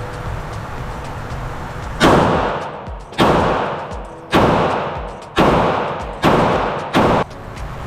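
Six shots from a 9mm Glock 48 pistol with an Apex trigger, fired about a second apart and a little quicker at the end. Each shot echoes and fades over most of a second.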